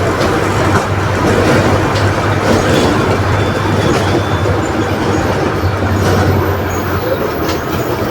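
Volkswagen 17.230 OD bus engine running under way, a steady low drone with road and body rumble that eases off a little about seven seconds in.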